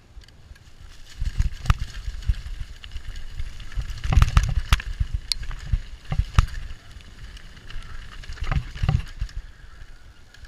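YT Tues downhill mountain bike rattling down a rough dirt trail: tyres rumbling over the ground, with sharp knocks and clatters from the bike as it hits roots and bumps, in clusters at about 1.5, 4, 6.5 and 9 seconds.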